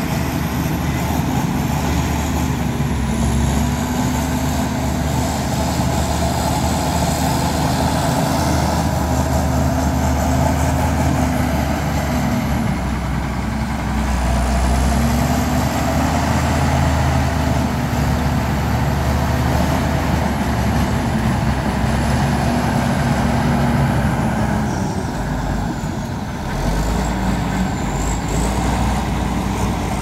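Heavy diesel construction equipment running continuously under working load, its engine note rising and falling. It eases off briefly near the end, then picks up again.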